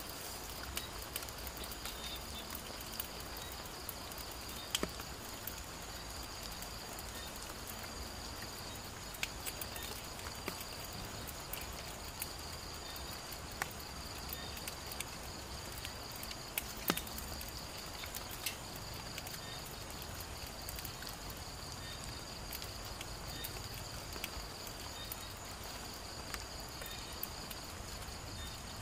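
Steady high trilling of night insects, with a handful of scattered sharp clicks, the loudest about two-thirds of the way through.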